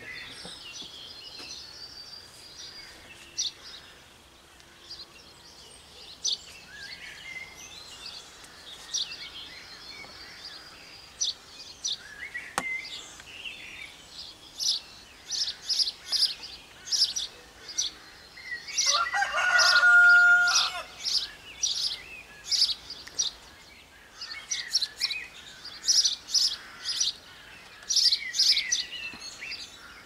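Small birds chirping and singing in short high notes, coming thick and fast in the second half, with a rooster crowing once about two-thirds of the way through, the loudest sound.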